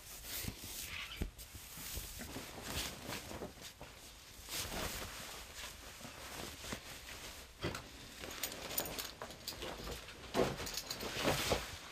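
Clothing rustling and brushing in irregular spells as a T-shirt is pulled off over the head and a sweater pulled on, with a few small knocks.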